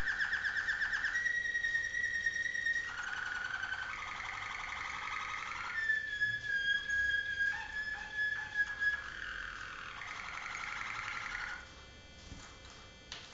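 Malinois (Waterslager) song canary singing a continuous song of rolling trills and long held whistling notes, one phrase straight after another, stopping near the end.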